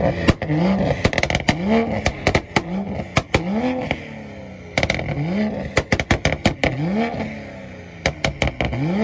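Mark V Toyota Supra revving hard again and again in quick rising blips, each rev broken by bursts of sharp exhaust pops and cracks.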